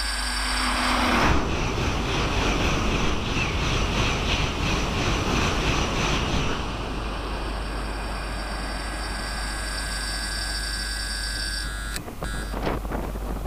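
A Tohoku Shinkansen train, an E2-series Hayate coupled to an E3-series Komachi, passing through the station at speed: a loud rush of air and wheels on rail sets in sharply about a second in, with an even beat in it, and eases to a lower steady rush after about six seconds as the train runs away.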